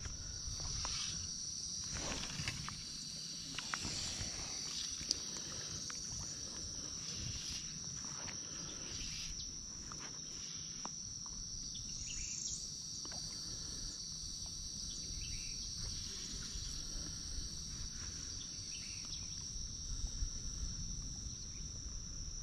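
Steady, high-pitched insect chorus droning throughout, with a low rumble underneath.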